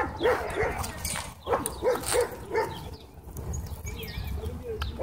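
A dog whining in short repeated notes, about three a second, thinning out in the second half.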